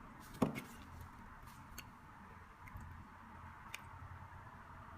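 Faint clicks and taps from a metal lighter being handled, with one sharper click about half a second in and a couple of faint ticks later.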